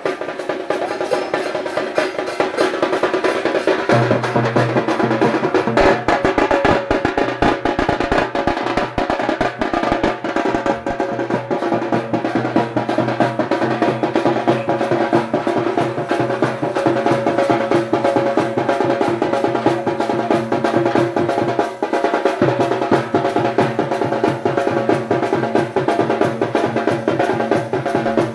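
Fast, continuous drumming on shoulder-slung folk drums beaten with sticks, with a steady droning tone held underneath.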